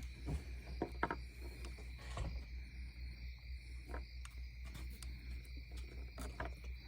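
A few small clicks and knocks of parts being handled, the loudest about a second in, over a steady high insect chirring and a low hum.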